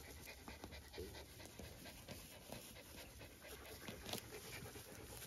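A dog panting quickly and faintly, with one short, slightly louder tap a little after four seconds.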